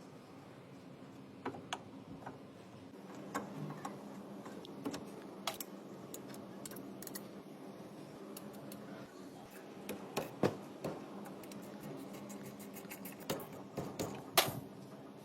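Irregular light clicks and knocks of hard objects being handled, coming singly and in small clusters, the loudest near the end, over a steady low hum.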